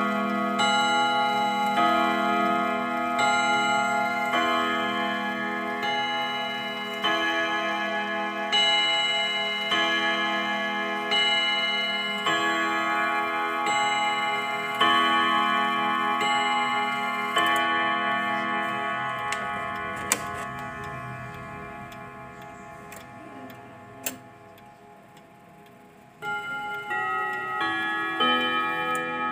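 Hammers striking the metal chime rods of a wall clock: a slow run of struck notes every couple of seconds, each ringing on and overlapping the next. The ringing dies away over the later part, with a couple of sharp clicks, until a new run of strikes begins about 26 seconds in.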